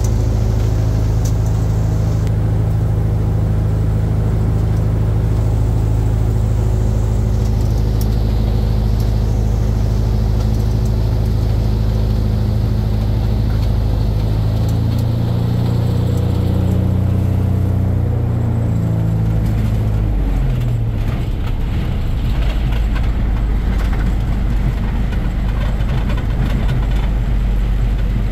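Republic Seabee amphibian's single pusher piston engine running steadily, heard from inside the cockpit. Its pitch wavers and shifts between about fifteen and twenty seconds in, then settles lower.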